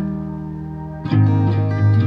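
Background music: a chord rings on and fades, then a new chord with deep bass notes comes in about halfway through.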